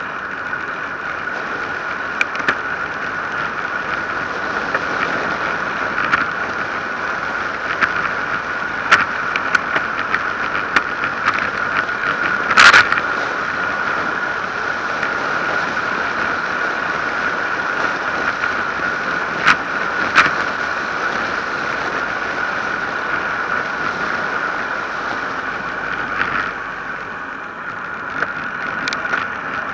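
Wind rushing over an action camera's microphone and tyres running on asphalt during a fast road-bike descent, with a steady high hum. Occasional sharp knocks and rattles come through, the loudest about twelve seconds in.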